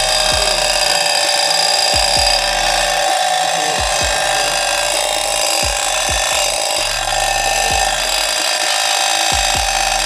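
Homemade motor-driven bird-hypnosis noisemaker, built from two tin cans with strings and rubber bands around a small spinning motor, running: a loud, steady, raspy buzz.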